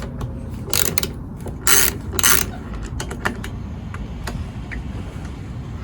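Socket ratchet clicking in three short strokes, then a few single clicks, as two 10 mm nuts are loosened on a lawn mower's carburetor.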